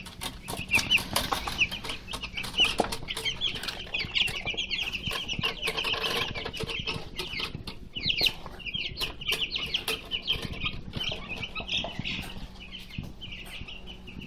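A brood of young chicks peeping continuously, many short high cheeps overlapping, mixed with quick sharp taps of beaks pecking at feed.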